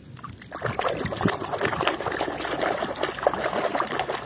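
Water splashing and sloshing as a hand scrubs a muddy toy horse in a basin of soapy water, a busy run of irregular splashes that starts about half a second in and stops abruptly near the end.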